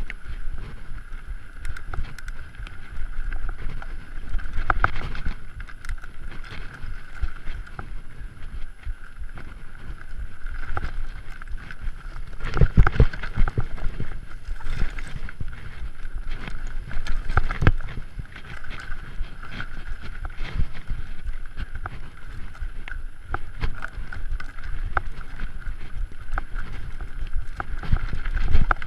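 Mountain bike riding fast over rocky singletrack, picked up on the rider's camera. Tyres and suspension rumble and rattle over stones, with frequent sharp knocks from the bike striking rocks, heaviest about 13 and 17 seconds in, and wind buffeting the microphone.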